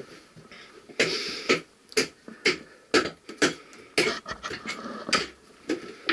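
Footsteps scuffing and crunching on the loose rocky floor of a mine passage, a steady run of strikes at about two a second that begins about a second in.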